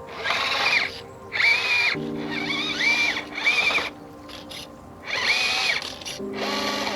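Electric motor and gear drive of a small RC rock crawler whining in six short throttle bursts, each rising in pitch, holding, then falling away. Background music with held notes runs underneath.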